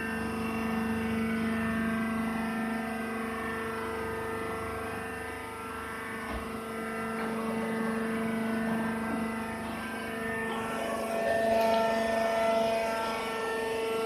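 Rice husk baler's hydraulic power unit running with a steady hum. From about ten seconds in it gets a little louder, with a higher whine added.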